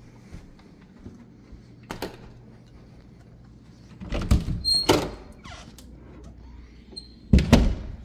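Interior doors being handled and opened: a cluster of knocks and clicks about four seconds in with a brief high squeak, then another pair of knocks near the end.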